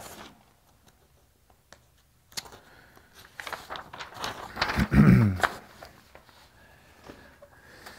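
Sheets of paper rustling and clicking as they are handled, with a short low murmur from a man's voice about five seconds in.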